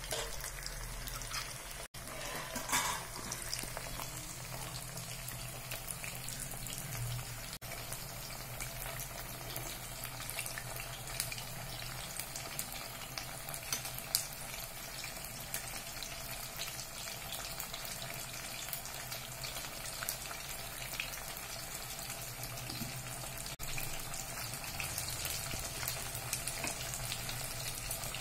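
Masala-coated pomfret slices shallow-frying in hot oil: a steady sizzle with scattered small crackles and pops.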